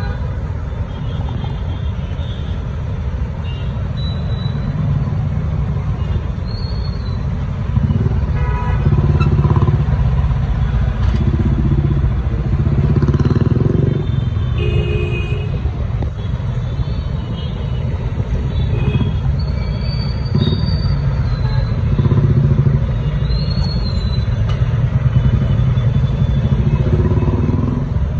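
City road traffic heard from a moving vehicle: a steady low rumble of engines and road and wind noise, with a few short vehicle horn honks about halfway through.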